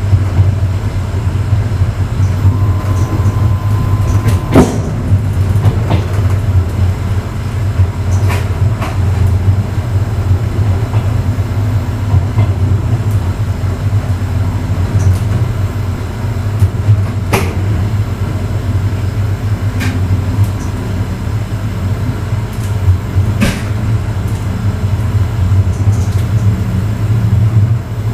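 Passenger railway car running along the track, heard from the vestibule of the last car: a steady low rumble with occasional sharp knocks. A brief high whine sounds about three seconds in.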